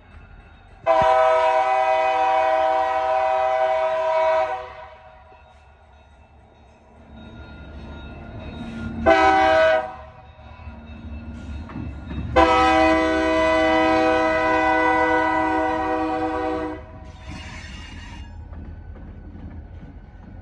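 Diesel locomotive air horn sounding a long blast, a short one and a second long blast. Between the blasts the locomotives' engines rumble, louder as they draw near.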